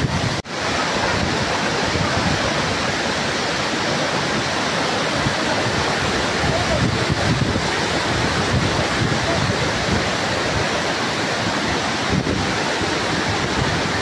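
Steady, loud rush of a powerful waterfall's falling water, with a brief dropout about half a second in.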